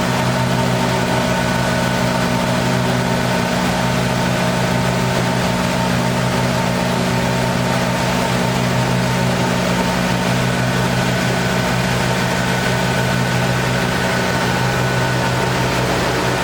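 Steady hum of a CNC double-sided woodworking shaper's motors running, without any change or cutting bursts.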